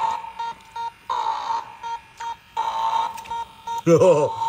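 Beast Lab Shark Beast Creator toy's electronic alarm beeping: a repeating short high beep, broken about every second and a half by a longer buzzy electronic blast. It is the toy's signal to put the lid on the chamber.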